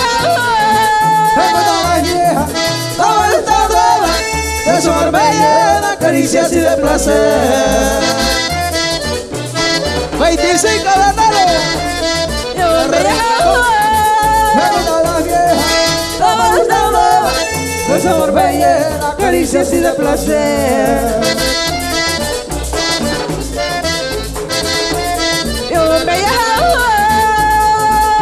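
Live Panamanian música típica: a button accordion leads over congas, drum kit, a metal scraper, bass and electric guitar, with a woman singing at times.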